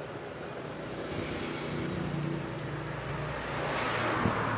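HP dc8000 small-form-factor desktop's cooling fans spinning up at power-on: a steady hum with a rushing whoosh that builds and swells toward the end.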